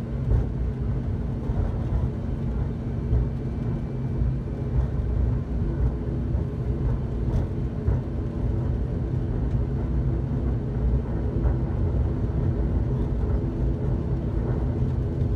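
Steady drone of an ATR 72-600's turboprop engines and propellers at taxi power, heard from inside the cabin beside the engine: a low hum with a few held tones over it.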